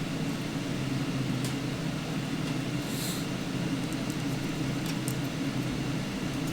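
Steady low machine hum with a few faint ticks of hardware being handled.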